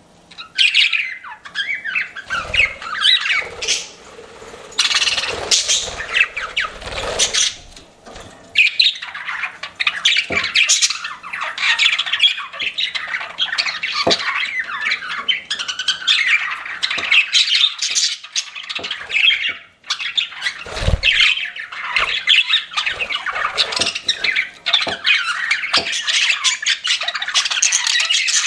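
Pet budgerigars chattering and warbling nonstop, quick chirps and squawks overlapping, with a few dull thumps mixed in.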